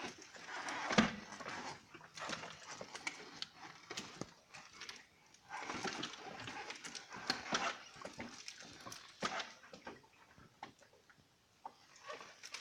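BMW F800GS motorcycle pushed while in gear, giving off the strange drivetrain noise its owner is asking about: irregular scraping and clicking in uneven bursts, quieter near the end.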